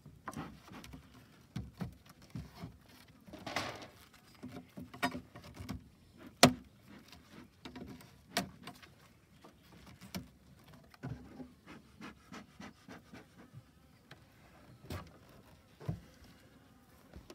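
Honeybees buzzing around an opened hive, with scattered knocks and scrapes of a metal hive tool and wooden frames against the hive box. A scraping patch comes about three and a half seconds in, and the loudest, sharpest knock about six and a half seconds in.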